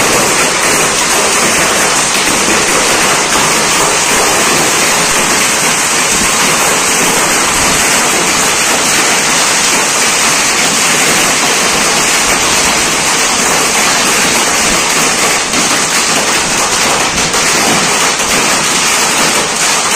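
Loud, steady rushing hiss with no pitch or rhythm, holding the same level throughout.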